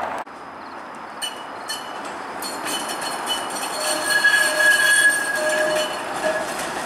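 Flexity Outlook streetcar's steel wheels squealing on curved track, with a couple of clicks over the rails about a second in, then a steady high squeal that grows loudest around the middle.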